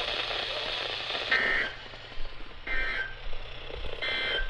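Three short bursts of EAS digital data tones, about a second apart, over a weather radio's hiss: the end-of-message (NNNN) code that closes the alert broadcast.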